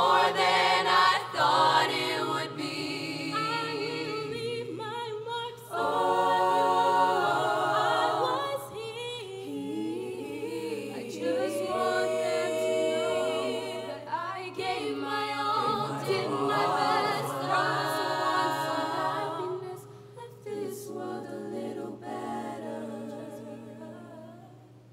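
A small a cappella vocal group of several voices singing together without instruments. The singing grows quieter and fades out near the end.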